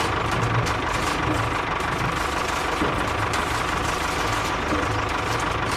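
Small engine running steadily at idle, with a rapid, even knocking.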